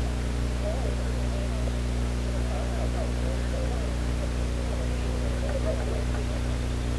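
Steady low hum under faint, distant voices.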